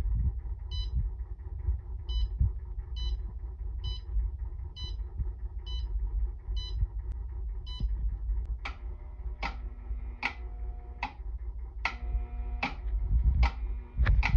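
Electronic beeps from an electric kiln's digital controller as its keypad is pressed to program a cone 6 firing. A run of short, faint high beeps about once a second, then louder beeps about every 0.7 s in the second half, over a low rumble.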